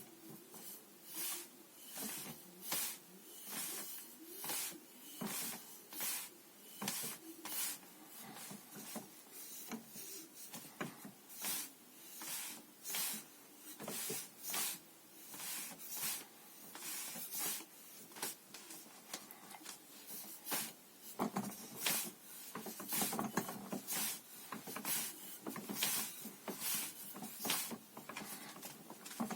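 Wing Chun hand drill: a rhythmic run of quick swishes and light slaps as hands and sleeves strike and brush against each other, about one to two a second.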